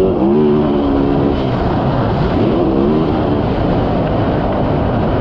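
Yamaha YZ450F's 450 cc single-cylinder four-stroke engine being ridden hard, the revs rising and falling twice as the throttle is worked, over a steady rush of noise.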